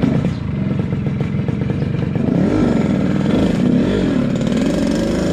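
A Yamaha RX-King single-cylinder two-stroke with its tuned 'ngorok' exhaust setting, being revved hard. It comes in suddenly and loudly, and its pitch rises and falls as the throttle is worked in the second half.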